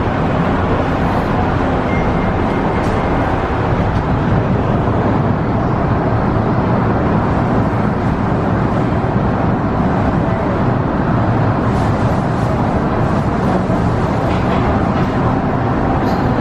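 MTR Tsuen Wan Line train running, a steady loud rumble and wheel-on-rail noise.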